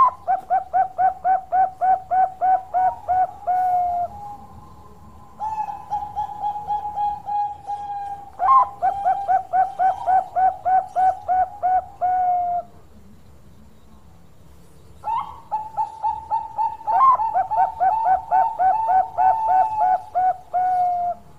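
Zebra dove of the Bangkok (Thai-bred) song type cooing: three song phrases. Each opens with a held note and runs into a fast even string of short coos, about three to four a second.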